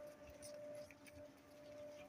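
Near silence: faint outdoor background with a faint steady hum.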